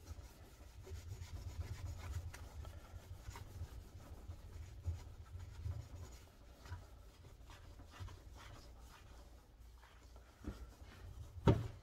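Paper towel rubbing liquid metal polish onto a buffed metal part in faint, irregular strokes that thin out about halfway through. A light knock comes shortly before the end.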